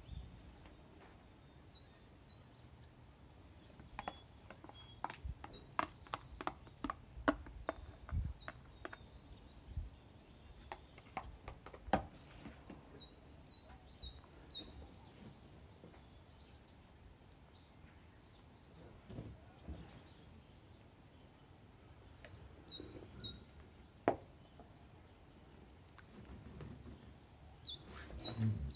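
Small birds chirping in several bursts of quick high notes, over a low background hum. A run of light clicks and taps in the first half, and one more single click later.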